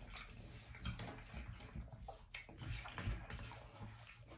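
Faint wet eating sounds: chewing and mouth noises with small, scattered clicks.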